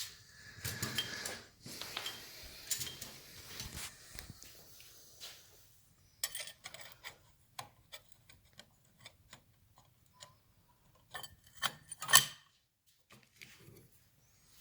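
Clutch plates clinking and scraping against one another and the clutch hub as they are slid into place, with a louder knock near the end.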